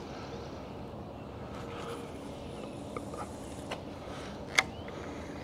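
Spinning rod and reel being handled after a cast: a few light clicks, then one sharp click about four and a half seconds in, over a faint steady background hum.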